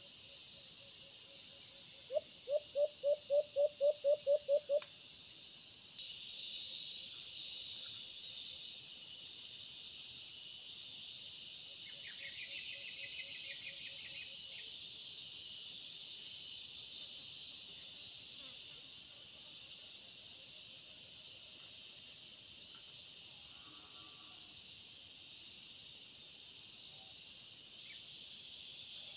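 A dove calls about two seconds in: a quick run of about a dozen low hoots, some four a second, lasting about three seconds. Behind it is a steady high insect drone that grows louder about six seconds in.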